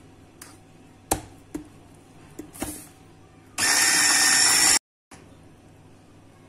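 Electric hand mixer whisking pudding and whipped-cream powder in a steel bowl. The motor runs at speed with a steady whine for just over a second, then stops suddenly. A few light knocks come before it.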